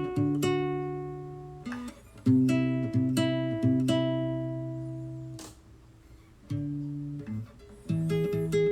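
Acoustic guitar music: strummed chords left to ring and fade away, a brief near-quiet gap past the middle, then quicker, steady strumming near the end.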